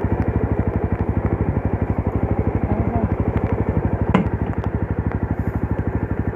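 Classic Legends Yezdi Roadster's single-cylinder engine idling with a fast, even exhaust beat, about twelve pulses a second. A single sharp clunk comes about four seconds in.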